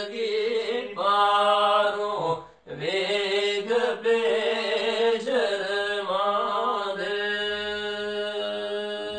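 Male voices singing Pahari kalam (sung poetry) in a chanting style, with a drawn-out melody. The singing breaks off briefly about two and a half seconds in and ends on a long held note.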